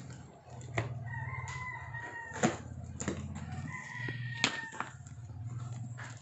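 A rooster crowing twice in long drawn-out calls, over sharp knocks and clicks from a cardboard box being handled and cut open with scissors.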